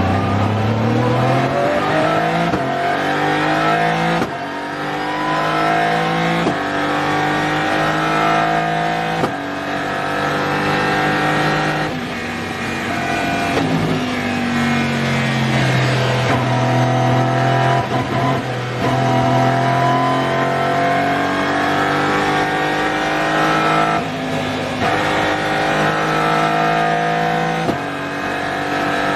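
Aston Martin Vantage GT3 Evo's twin-turbo V8 race engine heard from on board, pulling up through the gears with quick upshifts every second or two. About halfway through it drops down the gears and holds a nearly steady note for several seconds, then climbs through the gears again near the end.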